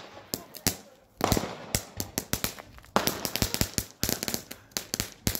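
Fireworks going off in a rapid, irregular run of sharp bangs and crackles, with a longer rushing burst about a second in and another about three seconds in.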